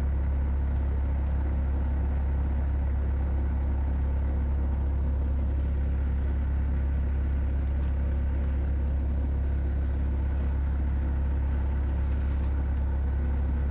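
Steady low drone of a running engine, unchanging in pitch and level.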